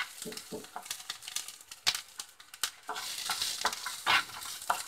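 Peeled garlic cloves sizzling lightly in a little hot oil in a metal pan, with a wooden spatula stirring them and scraping against the pan in frequent irregular scrapes and clicks.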